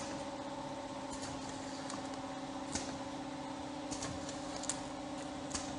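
Can labeling machine and conveyor of a powder filling line running: a steady motor hum with about six sharp mechanical clicks at irregular intervals.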